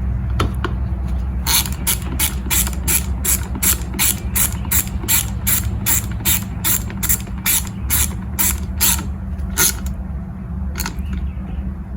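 Hand ratchet clicking as nuts are tightened down on the carburetor studs of a string trimmer. The clicks come in a steady run of about three a second for most of the time, pause, and a few more come near the end.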